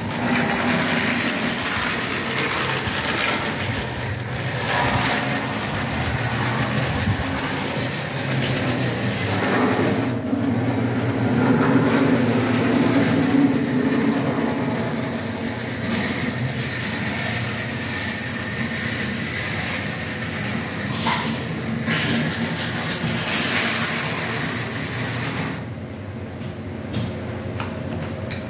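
Model trains running on a layout: small locomotive motors and wheels rolling on the track, with a steady high whine that drops out near the end.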